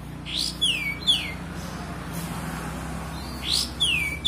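A kapas tembak bulbul singing short, clear whistled notes: a quick upward note, then notes that swoop downward, coming in clusters about half a second in and again near the end. A steady low hum runs underneath.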